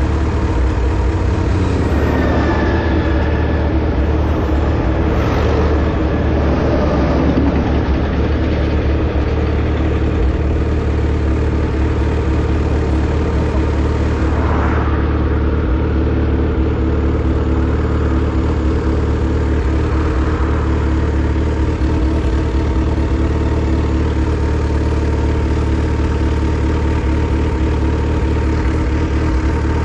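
Motorcycle engine running steadily at an even, unchanging pitch, with a few brief swells of noise around five and fifteen seconds in.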